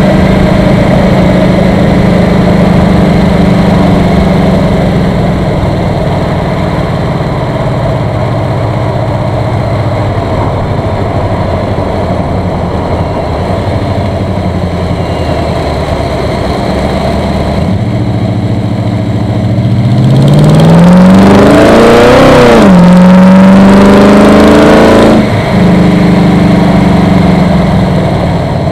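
1974 Chevrolet Corvette V8 fed by a Holley 4150 600 cfm vacuum-secondary carburetor, idling steadily. About twenty seconds in it is revved up and held at higher rpm for a few seconds, then cuts back sharply to idle.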